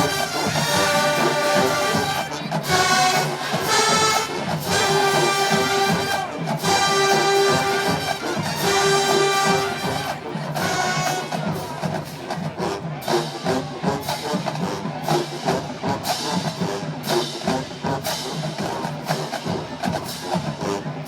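HBCU marching band playing an arrangement of a pop song: the brass section holds loud sustained chords over drums. About halfway through the long held horn notes give way to a busier drum-driven beat with shorter horn hits.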